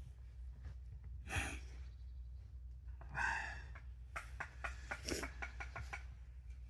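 Two breathy exhales, then a quick run of small soft clicks and squelches from hands pressing raw minced meat into a burger patty.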